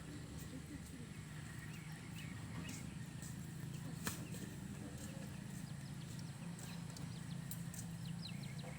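Small birds chirping in short calls over a steady low hum, with a few light clicks.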